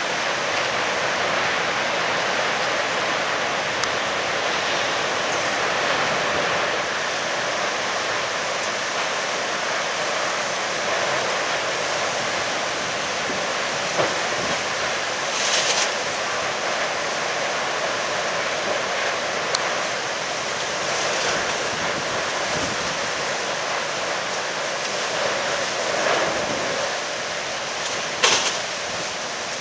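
Strong storm wind rushing steadily, a constant loud noise with no let-up. A few short, sharper bursts stand out, the loudest near the end.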